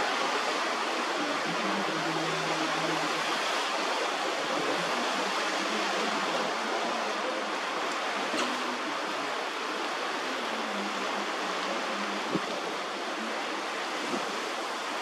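Steady rushing of water, with a faint low hum that comes and goes, strongest near the start.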